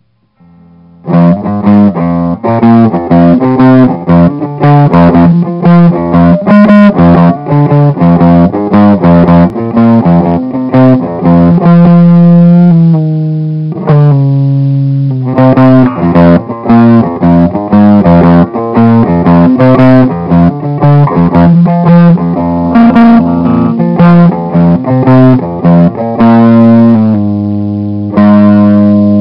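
Guitar music, notes picked in quick succession with a bass line under them, with a held chord about 12 to 14 seconds in.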